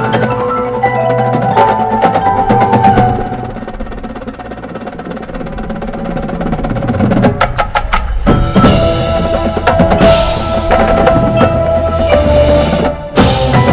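A marching percussion ensemble plays: snare, tenor and bass drums with a front ensemble of marimbas and mallet keyboards holding chords. The music drops to a softer passage a few seconds in, then a quick run of drum strokes just after seven seconds brings the full ensemble back in loud around eight seconds.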